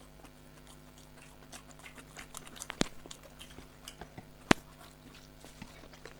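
Eating sounds of people chewing mouthfuls of rice and chicken curry: soft chewing with many small mouth clicks, and two sharp clicks, one a little before three seconds in and a louder one about four and a half seconds in.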